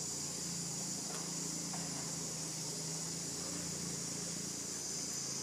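Steady insect chorus, an even high-pitched buzz that does not change, over a faint steady low hum.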